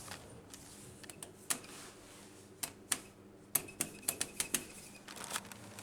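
A run of irregular sharp clicks, bunched into a quick cluster about halfway through, over a faint steady hum.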